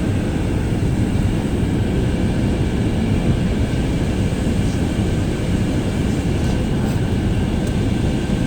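Steady cabin noise of an airliner in flight: an even rumble of engines and airflow, heaviest in the low end, with a faint steady hum.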